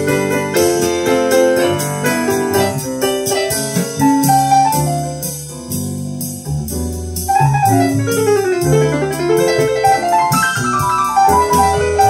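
Piano music played back from a recording, with quick runs of notes and a long descending run about seven seconds in.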